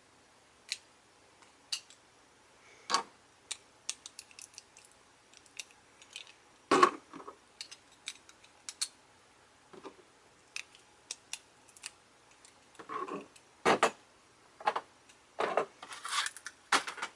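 Beyblade Burst spinning-top parts clicking and clattering as they are handled and fitted together: scattered sharp clicks with a few louder knocks.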